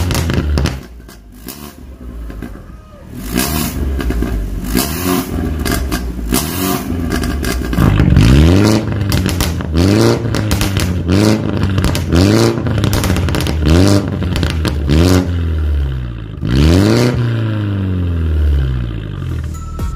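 BMW F30 320i's N20 turbocharged four-cylinder engine revved in the stationary car through an aftermarket stainless-steel full exhaust with its valves open in racing mode. After a dip about a second in and a few seconds of sharp crackles, it gives a series of quick throttle blips about once a second, each rising and falling. A bigger rev comes near the end, then it eases back toward idle.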